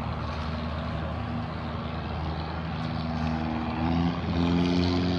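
A large engine running steadily with a low hum and a few held tones, growing a little louder and higher about four seconds in.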